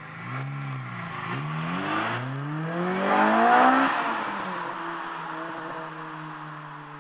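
Honda Civic Type R EP3's 2.0 litre four-cylinder engine, heard through a Spoon N1 exhaust backbox and Tegiwa carbon intake, accelerating hard past. Its pitch rises and dips once within the first second, then climbs steadily to its loudest about three and a half seconds in as the car passes. It then drops to a lower, steadier note that fades as the car pulls away.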